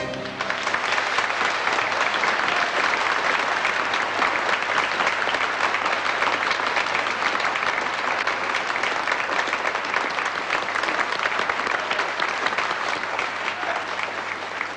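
Studio audience applauding: many hands clapping in a dense, steady wash that tapers off near the end.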